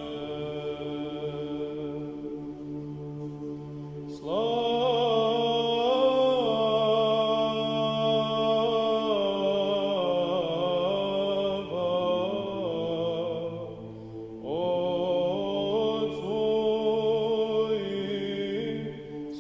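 Church chant: a steady low held drone, joined about four seconds in by a voice singing long held notes that slide from pitch to pitch. The singing breaks off briefly about three-quarters of the way through, then resumes.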